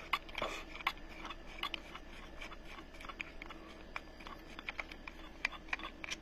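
Irregular small clicks and light scraping as the arbor nut of a WESCO 20V cordless mini circular saw is turned by hand to free the blade.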